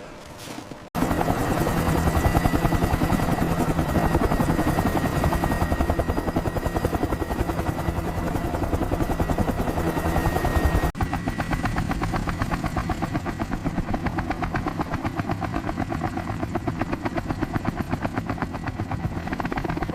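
Helicopter rotors chopping steadily in a rapid, even beat. The sound cuts in suddenly about a second in, then switches abruptly to a thinner-sounding take of the same pulsing chop.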